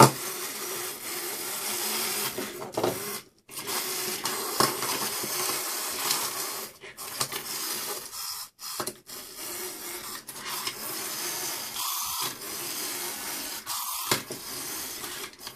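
Clockwork motors of wind-up Pac-Man and ghost toys whirring steadily as the toys run, with a few short breaks and small plastic knocks as they are handled.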